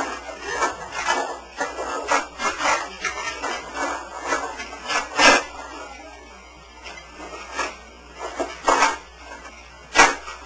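Handling noise of small hard objects: irregular clicking, light clatter and rubbing, with a few sharper clicks, the loudest near the end.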